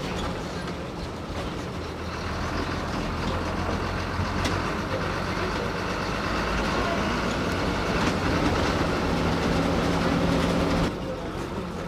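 TNSTC bus's diesel engine running under load, heard from the cab, with occasional knocks and rattles. The engine grows a little louder, then its note drops off abruptly near the end.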